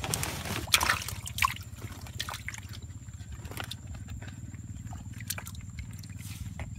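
Muddy water splashing and sloshing as a hand gropes for fish in a small water-filled hole, with a few sharper splashes in the first second or so and smaller scattered ones after.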